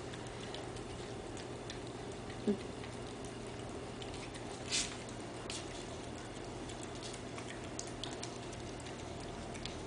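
A puppy eating from a plate of meat chunks: scattered small clicks and smacks of chewing and of the plate over a steady low hum, with a short rising squeak about two and a half seconds in and a louder click near five seconds.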